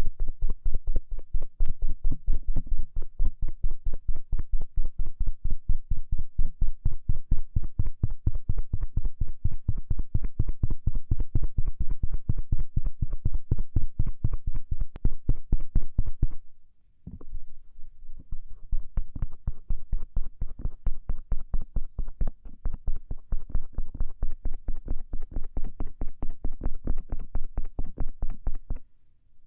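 Stainless-steel ear pick rapidly scraping and rubbing over the outer ear (pinna) of an ear-shaped binaural microphone, with quick strokes at about four to five a second and a deep thump on each stroke. The strokes pause briefly about halfway through, then resume.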